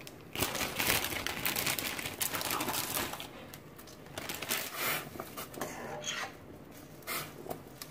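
Dry spaghetti strands rustling, clicking and scraping against the rim of a stainless steel pot as they soften and slide into boiling water, densest in the first three seconds. A few more scrapes and clicks come near the end as a utensil pushes the pasta down.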